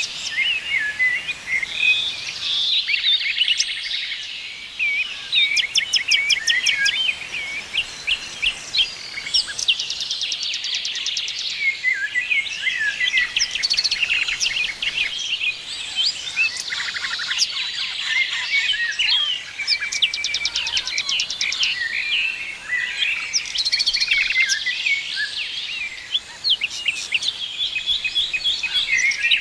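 Several songbirds singing at once: a dense chorus of overlapping chirps, warbles and fast high trills.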